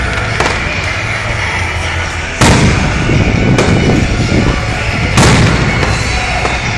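Aerial firework shells bursting: two loud booms, about two and a half and five seconds in, with smaller pops between them over a continuous background din.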